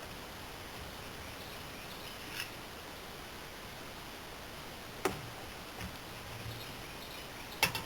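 A few short, sharp clicks and knocks over a steady faint background hiss, the loudest near the end.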